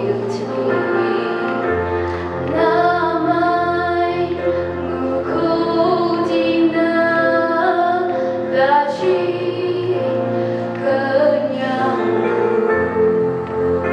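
A young woman singing a slow solo song into a microphone, with instrumental accompaniment holding long low bass notes beneath her voice.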